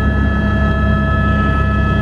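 Helicopter engine and rotor noise heard from inside the cabin: a loud, steady rush with several held whining tones that stay at a constant pitch.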